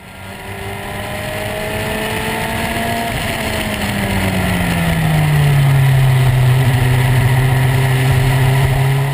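Nissan DeltaWing racing car's turbocharged four-cylinder engine running at speed, heard from the cockpit over wind and road noise. The note fades in, then drops in pitch about three to five seconds in and holds steady.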